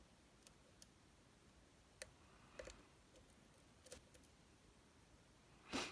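Faint, scattered clicks and ticks of a hook pick working the pin stacks of a Metal X6V lock under heavy tension, with a louder click near the end.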